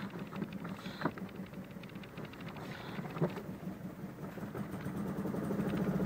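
Toyota Tercel's four-cylinder engine running rough, the sign of the severe misfire the owner suspects, with a couple of light clicks; the engine gets louder and rises a little in pitch near the end.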